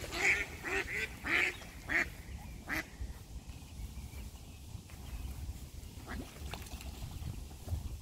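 Mallard quacking: a run of about six quacks in the first three seconds, then much quieter.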